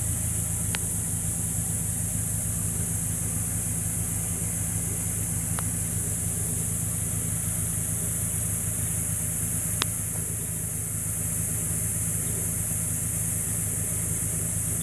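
Car engine idling: a steady low hum under a constant high hiss, with three faint sharp clicks spread through it.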